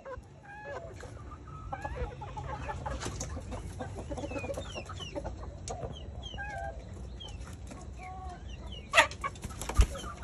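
Flock of chickens clucking and calling, with many short high calls that drop in pitch. Two loud sharp sounds stand out about nine seconds in and a moment later.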